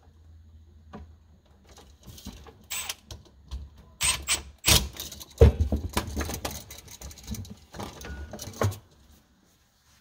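Handling noise of electrical wiring: stiff wires rustling and plastic wall-outlet receptacles clicking and knocking as they are pulled out of a plastic electrical box. The clicks and knocks are loudest in the middle and stop shortly before the end.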